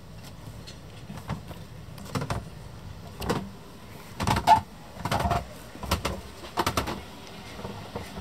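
Footsteps and knocks as someone walks down steps from a boat's deck into its cabin: about seven irregular thumps, the loudest near the middle.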